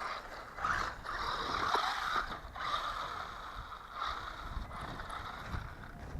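Small hobby-grade 1/12-scale RC car driving, its electric motor and gears whirring with tyre noise on the ground, the sound swelling and fading as it speeds up and slows.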